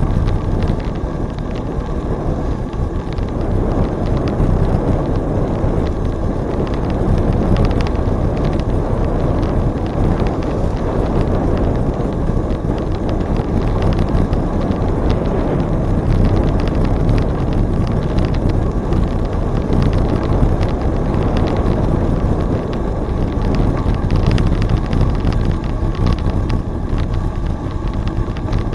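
Steady wind rushing over the microphone of a camera riding along on a moving bicycle, mixed with the low rumble of the bike rolling along the trail.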